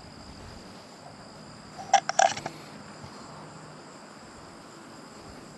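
A steady, high chorus of insects, with a short rattle of sharp clicks about two seconds in.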